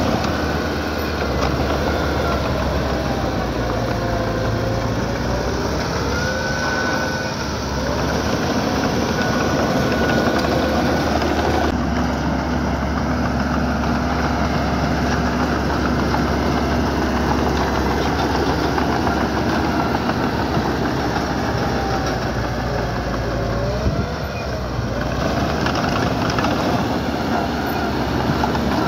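Heavy earthmoving equipment engine running steadily under work, with occasional wavering high squeals over the engine noise.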